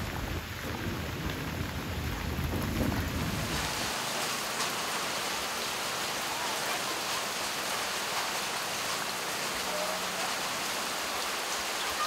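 Heavy rain falling steadily, a continuous hiss, with a low rumble for the first three or four seconds.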